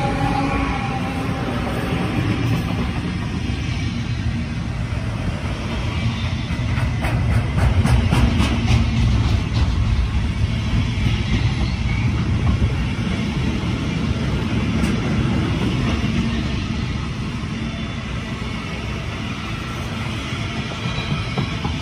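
Container freight wagons rolling past, their wheels making a steady low rumble on the rails, with a run of clicks from the wheels about seven to nine seconds in. The rumble eases slightly towards the end.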